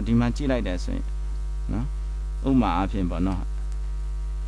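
Steady low mains hum at about 50 Hz runs under the recording. A man speaks short phrases over it at the start and again past the middle.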